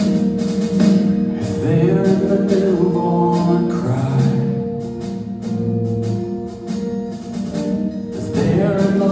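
Live worship band playing a steady rock-pop ballad on electric guitars and drums, with a male lead vocalist coming in about two seconds in to sing the opening verse.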